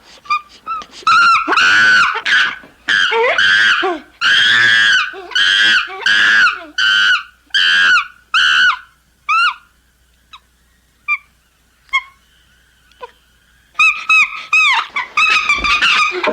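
Ape screams: a fast series of loud shrieking calls, each rising and falling in pitch. About nine seconds in they thin out to a few short yelps, then start again loudly near the end.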